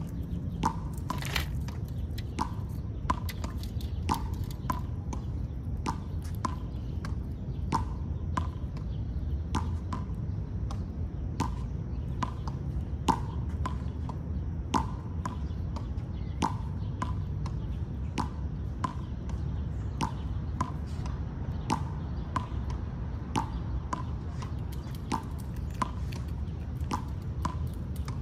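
Chipmunk calling: a steady run of short, knocking 'chuck' notes, a little more than one a second, over a low steady rumble.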